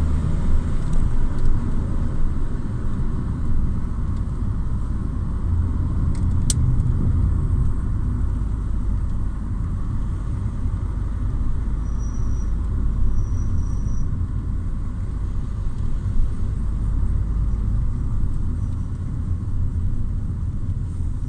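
Car driving, a steady low rumble of road and engine noise. A single sharp click about six seconds in.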